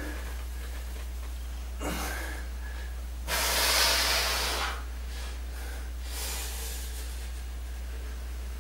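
Heavy breathing of a man straining through dumbbell squats: a short breath about two seconds in, then a long, forceful exhale a little after three seconds as he drives up to standing, and a fainter breath around six seconds. A steady low hum sits underneath.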